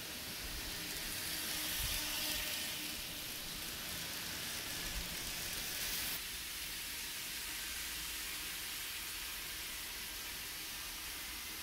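Kato model trains running on their track: a steady hiss of wheels and motors, stronger in the first few seconds while a locomotive comes head-on, and changing abruptly to a softer, even hiss about six seconds in.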